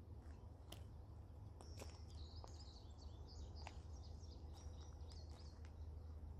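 A songbird chirping faintly in a quick run of short high notes over a steady low background rumble, with a few faint clicks.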